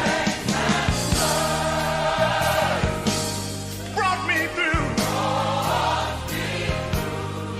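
Gospel song: voices singing with wavering, sliding runs over a band with steady bass notes and a regular drum beat.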